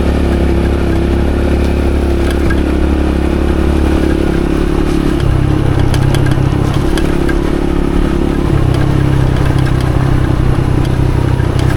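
Motorcycle engine running as it is ridden along a wet dirt track. Its note shifts about 5 seconds in and again about 8.5 seconds in, with small clicks and rattles throughout.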